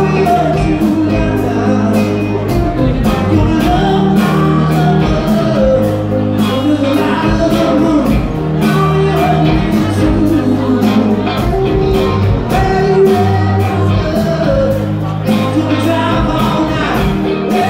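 Live rock band playing loud: a steady drum beat, electric guitars and keyboard, with singing over them.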